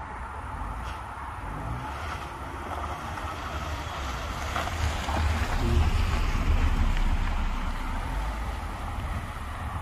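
Honda sedan driving past on a dirt yard. Its engine and tyres grow louder to a peak a little past halfway, then fade. A steady low rumble of wind on the microphone lies underneath.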